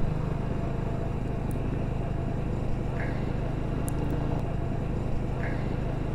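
Single-cylinder engine of a TVS Apache RTR 200 4V motorcycle running at a steady speed while riding, a low even engine note that holds unchanged.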